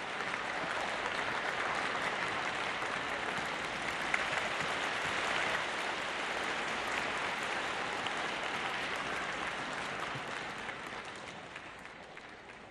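Audience applauding in an arena, dying away over the last few seconds.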